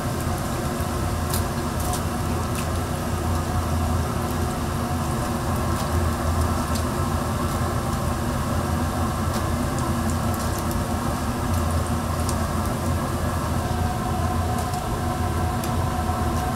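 A steady low hum and rumble, like a running fan or motor, with a light hiss on top and a few faint clicks and taps.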